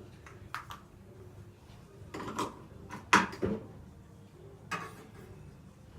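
Tchibo Cafissimo capsule coffee machine being handled: several separate plastic clicks and clunks as the capsule compartment is opened, a capsule is changed and the compartment is shut, the loudest pair about three seconds in.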